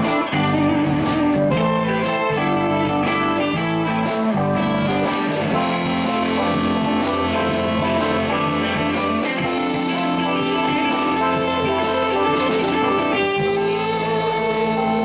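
Live band playing: electric guitar, bass guitar, saxophone and drums. Held notes around the middle register come in near the end.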